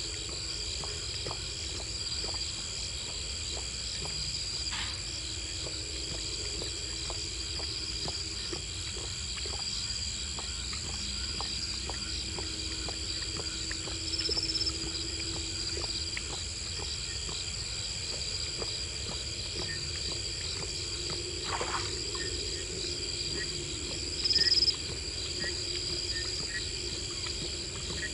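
Lioness lapping water close to the microphone, heard as a string of soft, quick ticks. Behind it, a steady high trilling of night insects such as crickets, with two brief, louder high chirps, one about halfway through and a stronger one near the end.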